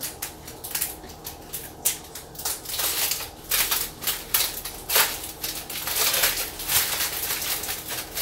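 Aluminium foil and the plastic sleeve of a flower bouquet crinkling in irregular bursts as the foil is worked loose from the stems.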